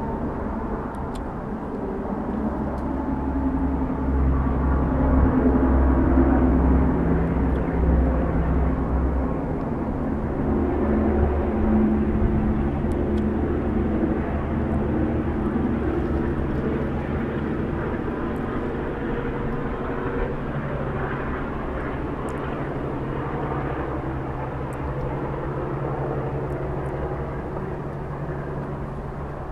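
Engine drone of something passing, with several low hums whose pitches shift slowly; it swells over the first few seconds, then fades gradually.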